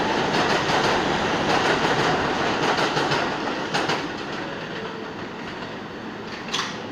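Subway train running on another track, its wheels clattering over the rail joints, the rumble fading away after about four seconds. A single sharp clack near the end.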